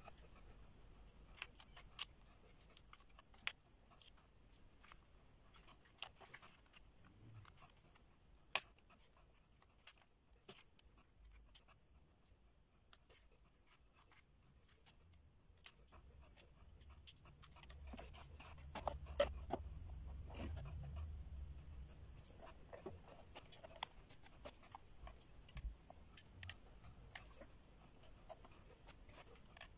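Faint, scattered light clicks and taps of wooden ice-cream sticks being laid side by side on a board, with soft rubbing of paper. A low rumble swells and fades in the middle.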